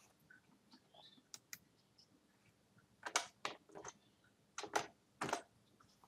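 Faint, irregular clicks and taps of a computer keyboard in a few short clusters, as the lecture slides are advanced.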